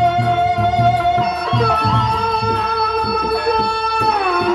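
Gendang beleq, the Sasak drum-and-gong ensemble of Lombok, playing. Deep drum strokes repeat steadily with a light metallic ticking above them, under long held melodic notes that slide down about four seconds in.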